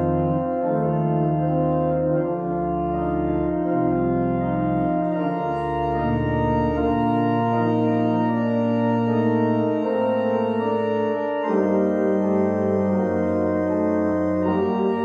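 Church organ playing slow sustained chords over low pedal bass notes. The pedal bass drops out about halfway, and a brighter, fuller sound comes in about three-quarters of the way through.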